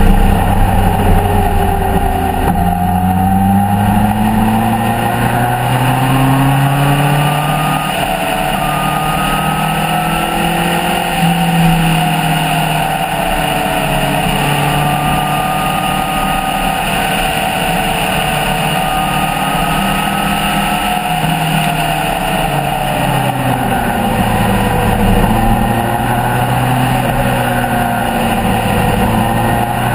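Motorcycle engine under way, heard close from an on-board camera. Its pitch rises and falls slowly as the rider opens and eases the throttle, dipping clearly twice, over a steady rush of wind noise.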